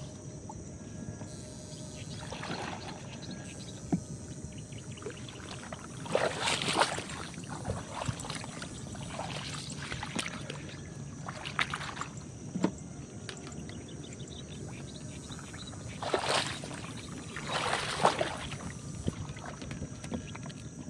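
Water splashing and sloshing in several irregular bursts a few seconds apart, over a steady background of moving water.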